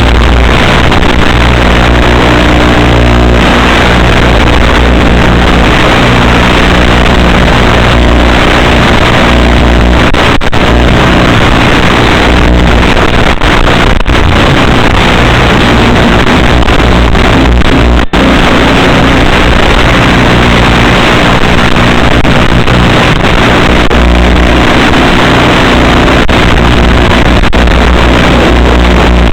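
Electric motor and propeller of an Assassin FPV flying wing running steadily at flight throttle, with heavy wind rushing over the onboard microphone. The sound is loud and nearly clipped, with a brief drop about 18 seconds in.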